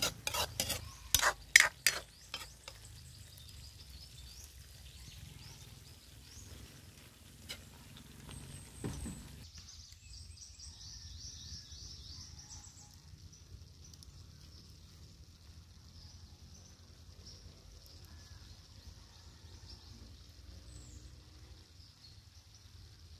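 A metal ladle clanking and scraping against a steel wok while a thick tomato stew is stirred, with several sharp clanks in the first two seconds and a couple of softer knocks later. After about nine seconds the sound gives way to a faint, steady high-pitched chirring.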